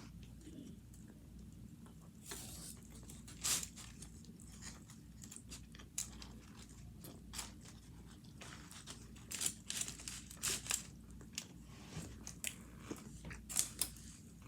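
A person eating tacos close to the microphone: irregular crunchy bites and chewing, with a denser run of louder crunches around ten seconds in and another near the end.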